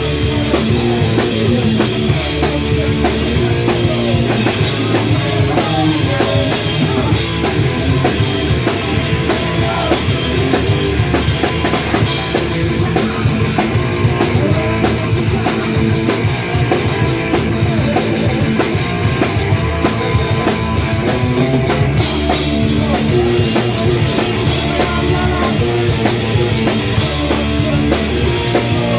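Live punk rock band playing loud, with a driving drum kit and guitars.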